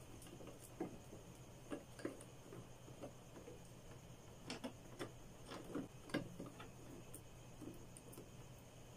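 Faint, scattered clicks and taps of hands handling insulated electrical wires and a plastic wall switch, at irregular intervals, over a low steady hum.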